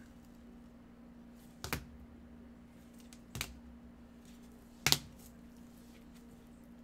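Hard plastic trading-card cases clicking against each other as a stack of encased cards is flipped through by hand: three sharp clicks about a second and a half apart, the last the loudest, over a faint steady hum.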